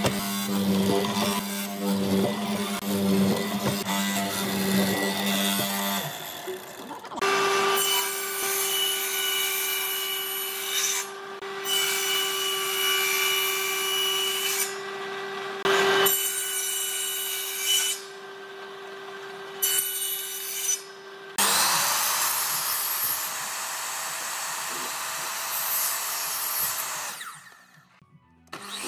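Woodworking machines one after another: a hollow-chisel mortiser's motor running as it bores into a pine block, then a table saw running steadily with a few brief stops, then a sliding miter saw spinning up with a rising whine and running until it cuts off near the end.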